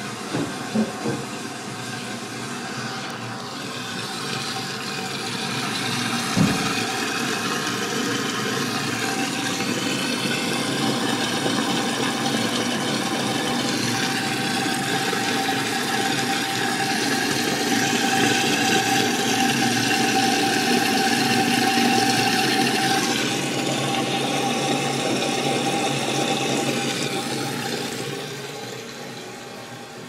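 Kohler Wellworth toilet tank refilling through a Mansfield tilt-style fill valve: steady rushing and hissing of water with a thin whistling tone, tapering off near the end as the valve closes. A few clicks near the start and a single knock about six seconds in.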